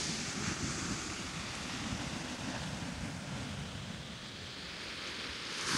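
Sea surf washing on the beach: a steady hiss that eases a little in the middle and swells again near the end, with some wind buffeting the microphone.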